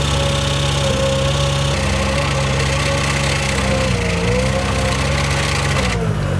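Weedoo workboat's engine running steadily under the load of its hydraulic sickle-bar cutter, its pitch sagging briefly about four seconds in and dipping sharply near the end as the cutter stalls on a branch too thick to cut and the hydraulic fluid goes through the relief block.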